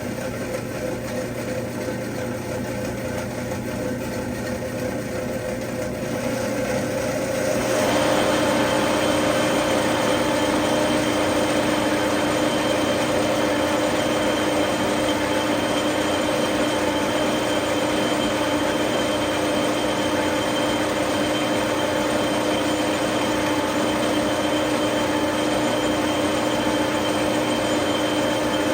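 Reed-Prentice engine lathe running. About eight seconds in it gets louder, with a steadier hiss and a constant high whine joining in, as the tool takes a turning pass on the hydrant shaft.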